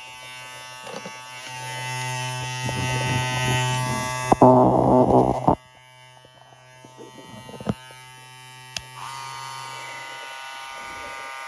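Two cordless hair clippers, a custom Wahl Senior and a TPOB Go with a custom motor, buzzing in turn, with switch clicks. A louder, harsher buzz runs from about four and a half seconds in and stops suddenly a second later. A second clipper starts with a higher-pitched buzz about nine seconds in.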